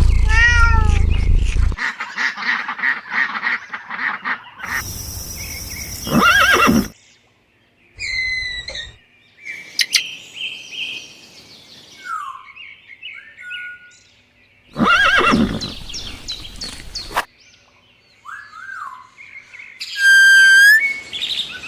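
A run of short, separate animal calls and bird chirps, one after another, each clip starting and stopping abruptly.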